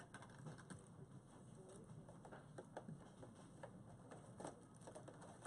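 Faint, scattered small clicks and rustles of a plastic action figure being turned over in the hands, with bits of plastic wrapping still on it.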